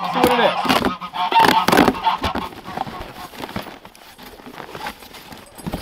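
Geese honking loudly for the first couple of seconds, then the quieter rustle and taps of a cardboard box being opened and its contents handled.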